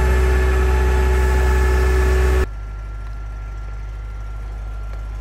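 Large forklift's engine idling steadily close by, a low hum with a constant pitch. About two and a half seconds in, the sound drops abruptly to a quieter, more distant idle.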